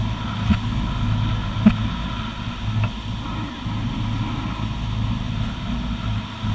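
A tour boat's engine running with a steady low hum under a constant rush of water and wind. Two sharp knocks come in the first two seconds.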